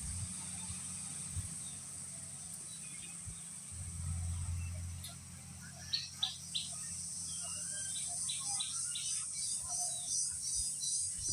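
Outdoor insect chorus shrilling steadily, with a high pulsing rhythm of a few beats a second coming in about six seconds in, and birds chirping now and then.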